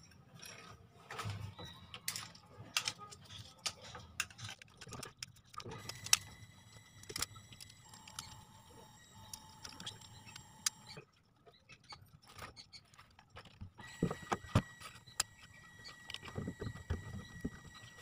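Hands handling spliced wires and a washing-machine motor capacitor: scattered small clicks, taps and rustles, with a faint thin high tone in the background during parts of it.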